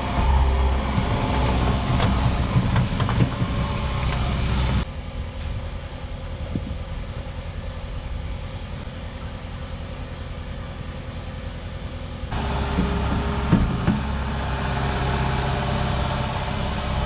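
Skid steer engine running steadily as the machine digs, with knocks and clanks of the bucket and machine. About five seconds in, the sound cuts abruptly to a quieter stretch, and the loud engine returns about seven seconds later.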